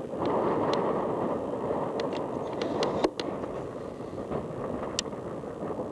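Steady road and engine noise inside the cabin of a 1971 Dodge Coronet on the move, with a few short sharp clicks scattered through it.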